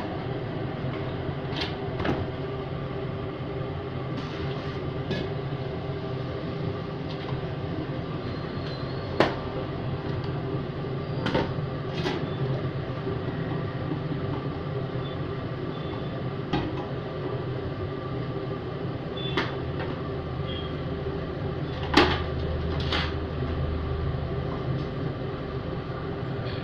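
Metal knocks and clatters of aluminium idli steamer lids and idli plates being handled against the pots, about nine scattered clanks, the loudest about 9 and 22 seconds in, over a steady kitchen hum.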